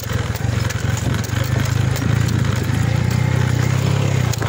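Motorcycle engine running steadily while riding over a rough dirt trail: a low, rapidly pulsing drone with scattered knocks and rattles.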